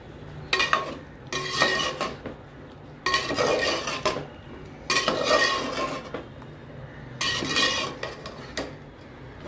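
A perforated metal ladle scraping and stirring boiled chickpeas around an aluminium pot, in about five strokes of a second or less each with short pauses between, the pot ringing faintly with each stroke.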